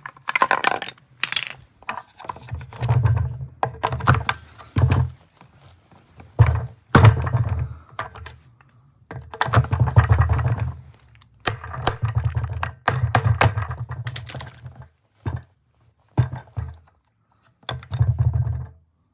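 Irregular thumps, knocks and rattling clatter of objects being handled and set down, in short bursts with pauses between them.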